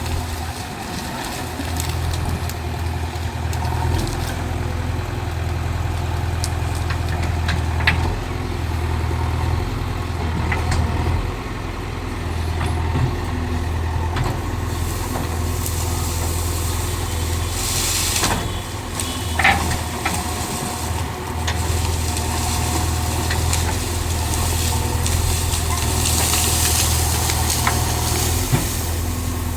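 Heavy diesel engine running steadily with a low hum, with a few brief knocks and clatters over it.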